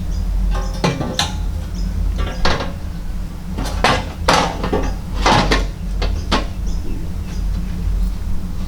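Heavy 4 mm steel bash plate clanking as it is handled and slid into position, an irregular string of sharp metallic knocks with brief ringing over a steady low rumble.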